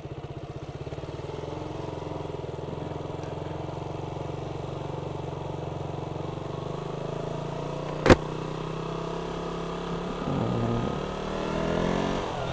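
KTM Duke 200's single-cylinder four-stroke engine running steadily at low speed in first gear, heard from the rider's seat. A single sharp click comes about eight seconds in, and the engine note swells near the end.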